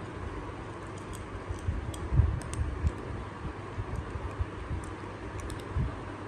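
Two kittens crunching dry kibble, with irregular small clicks and soft knocks of food and teeth against their ceramic bowls, over a steady background hiss.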